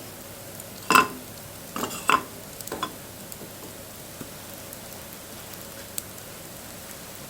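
Wood bonfire crackling, with a steady hiss and scattered small pops. A few louder knocks and clatters come about a second in and again around two seconds, like wood shifting or being handled on the fire.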